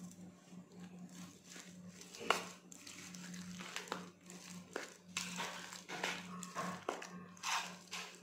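Steel spoon mixing salt into thick mashed okra chutney in a bowl: irregular scrapes and clinks against the bowl, the loudest about two seconds in, over a steady low hum.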